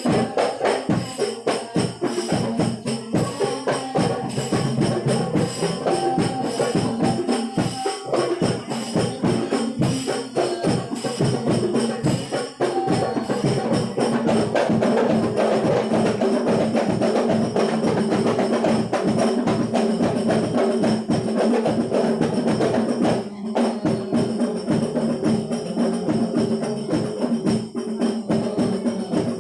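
Ensemble of hand-struck rebana hadrah frame drums playing a fast, steady, interlocking rhythm for an instrumental sholawat. The playing grows fuller and louder about halfway through.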